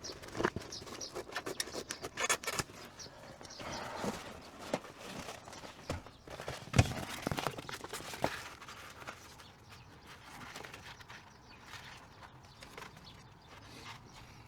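Irregular knocks, taps and rustling from sound-deadening insulation being handled and pressed into place in a car body, busiest for the first eight or nine seconds and then thinning out.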